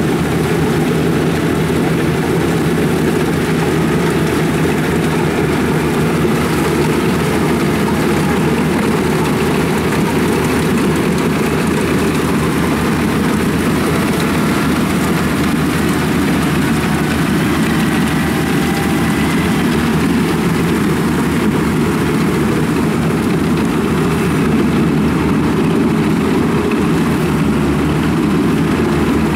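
Yanmar rice combine harvester's diesel engine and threshing machinery running steadily under load while it cuts rice.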